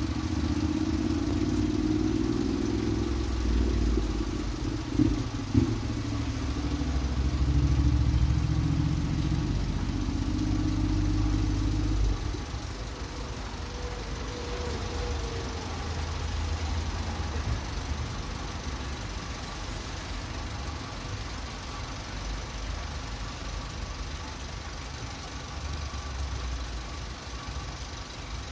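Steady rain falling on a roadside puddle and wet tarmac, with a vehicle engine running close by. The engine's low rumble stops about twelve seconds in, leaving the rain.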